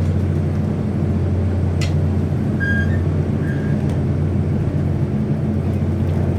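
Running noise in the gangway between cars of a Taiwan Railways DR3100 diesel multiple unit: a steady low drone of engine and wheels on the rails, with a sharp click about two seconds in and a brief high squeak from the gangway about three seconds in.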